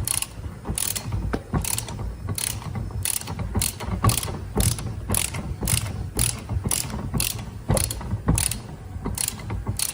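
Ratchet clicking in a steady rhythm, about two to three sharp clicks a second, during hand work on an air disc brake caliper.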